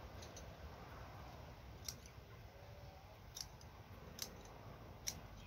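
Scissors snipping through crown daisy stems during harvest: four sharp snips, a second or so apart.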